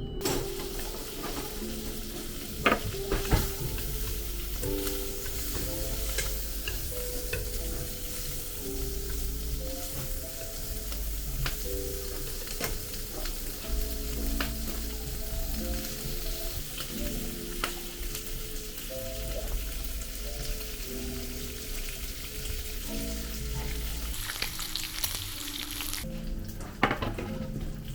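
Food frying in a pan: a steady sizzle with a few sharp clicks of a utensil stirring. The sizzle cuts off suddenly near the end.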